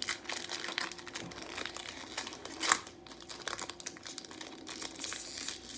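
Foil wrapper of a Pokémon trading-card booster pack crinkling and tearing as it is pulled open, with one sharper crackle about two and a half seconds in.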